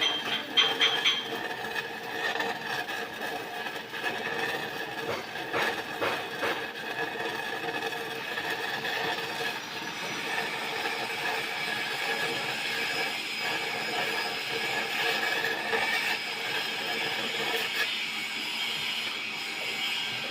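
Stick-welding arc with an E6011 2.5 mm electrode on a pipe root pass, crackling steadily. A few sharp clicks come in the first second or so.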